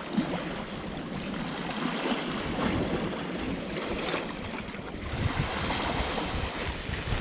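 Sea waves washing and sloshing against the shore in a steady wash of water noise, with some wind buffeting the microphone.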